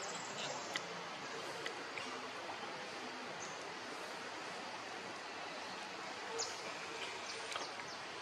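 Steady outdoor forest ambience, an even hiss like distant running water, with a handful of brief sharp clicks or chirps scattered through, the clearest about six and a half seconds in.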